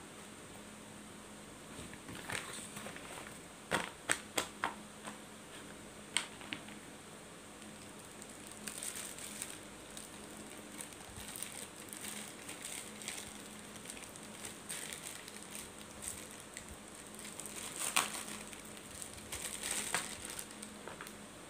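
Papadum crackers being broken by hand: a run of sharp, crisp cracks about four seconds in. Later a thin plastic bag crinkles and rustles as its knot is worked open, loudest near the end.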